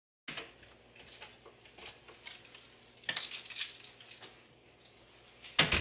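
A door being unlatched and opened, with keys jingling and a run of small metallic clicks, then a louder clack near the end.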